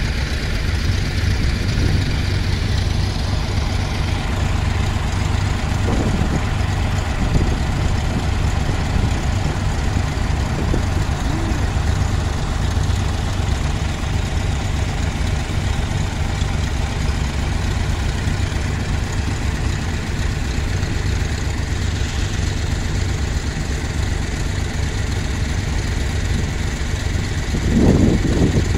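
Engines of a line of vintage tractors running together as they drive past and queue along the road, a steady low drone. A nearer engine swells louder near the end.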